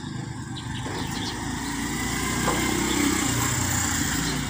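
A motor vehicle passing on the road, its engine and tyre noise swelling to a peak about three seconds in and then easing off.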